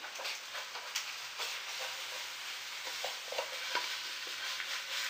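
A utensil scraping and clicking in a frying pan, with a run of small irregular scrapes over the faint sizzle of cod fillet still cooking.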